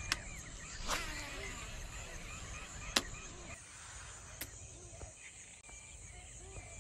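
Wetland birds chirping and calling over faint outdoor ambience, punctuated by a few sharp clicks, the loudest about three seconds in.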